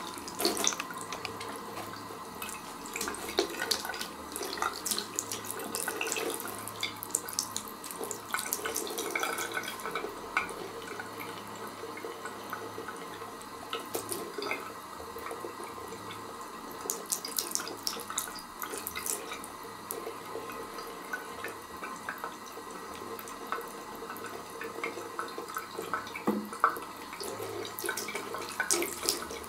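Thin stream of tap water running steadily into a ceramic bidet bowl, with irregular splashes and patters as a cat paws at the stream.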